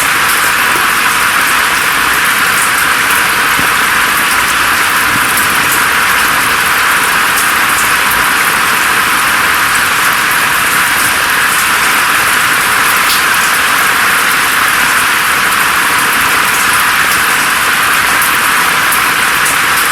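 Steady rainfall hiss with scattered sharp drop ticks. The sound is thin, with no low rumble underneath.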